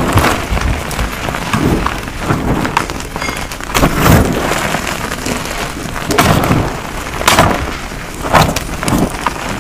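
Gym chalk powder crushed and squeezed by hand: soft crunches every one to two seconds, with a fine powdery hiss between them.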